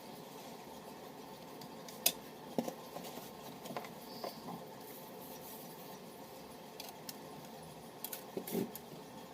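Small metal repair tools clicking and tapping against a phone's parts, a few scattered light clicks with a short cluster near the end, over a steady background hum.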